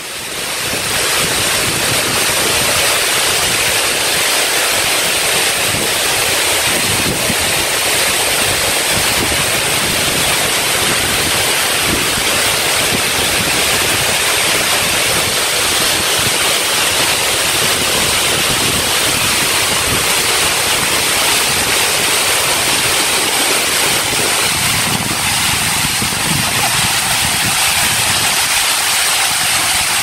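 A tall waterfall's steady, loud rush of falling water, unbroken throughout, its low rumble thinning a little near the end.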